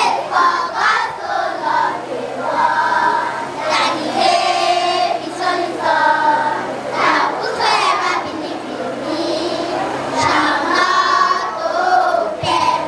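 A group of young children singing together as a choir, in phrases with held notes, over a faint steady hum.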